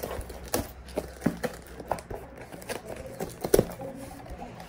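Cardboard shipping box being handled and opened by hand: irregular scraping, rustling and sharp knocks of cardboard, the loudest knock about three and a half seconds in.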